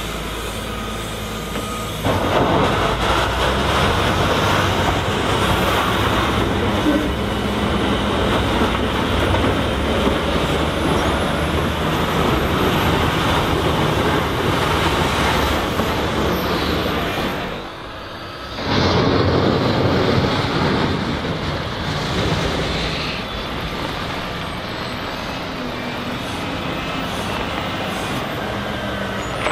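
Volvo L60H wheel loader's diesel engine working, revving up under load about two seconds in, dropping back briefly a little past halfway, then revving again before easing off near the end.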